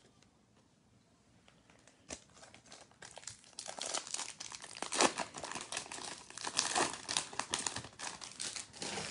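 A Topps Chrome trading-card pack wrapper being crinkled and torn open by hand: a dense crackling that starts about three seconds in, after a single click.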